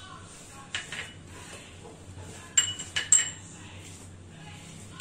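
Small glass bowls and a metal ring clinking as they are picked up and set down on a stone worktop: two soft knocks about a second in, then three sharp, ringing clinks around the middle.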